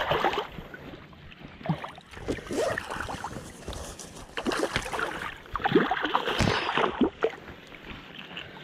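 Irregular splashing and sloshing of water at a landing net as a small hooked European sea bass is brought in and netted at the surface.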